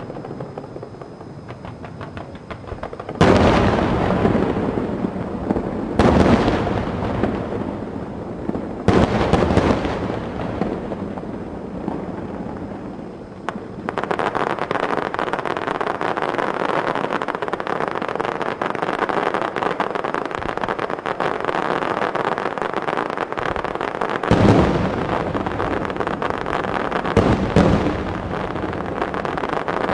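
Fireworks bursting: three loud booms about three seconds apart, each trailing off. From about halfway through comes a dense, continuous crackle of many rapid pops, with two more booms near the end.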